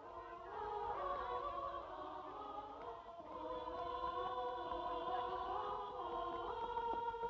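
A choir singing slow, held chords, many voices moving together. The chord gives way about three seconds in, and shifts again about six and a half seconds in.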